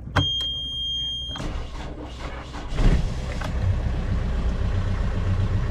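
Yanmar marine diesel being started on its starter battery: a steady high beep from the panel alarm for about a second at key-on, then the starter cranks and the engine catches about three seconds in and settles into a steady idle. It is a weaker start than hoped on a freshly cleaned but sulfated starter battery.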